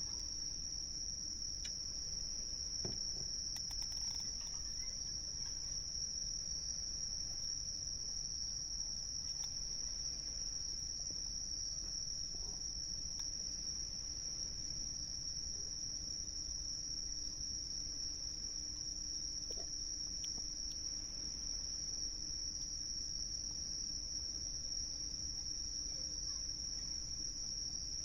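Insects trilling in a continuous, steady, high-pitched chorus, over a low even background hiss. A few faint ticks are scattered through it.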